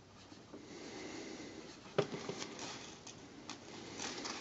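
Faint breathing and a few light taps and clicks of fingers and pencil handling a phone calculator and notepad. The sharpest click comes about two seconds in.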